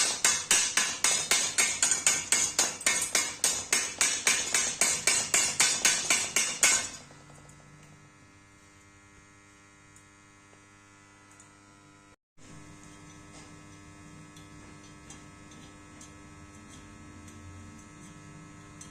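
A fast, even run of sharp hits, about four or five a second, stops suddenly about seven seconds in. A steady electrical hum follows, like an idling arc-welding transformer.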